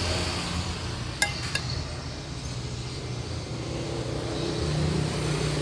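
A spoon clinks twice against a ceramic plate about a second in, over a steady hum of road traffic.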